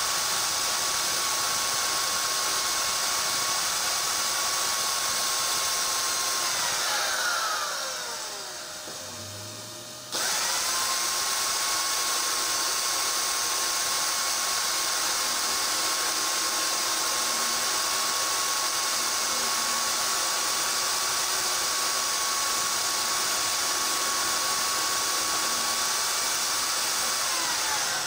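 Angle grinder grinding the teeth off a steel gear that a cordless drill spins as an improvised lathe: a steady motor whine over a harsh grinding hiss. The whine winds down about seven seconds in, starts again abruptly about three seconds later, and winds down again at the very end.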